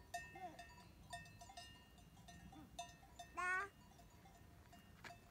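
Faint cowbells clanking irregularly, the strokes ringing on with several steady high tones. A sheep gives one loud wavering bleat a little past halfway.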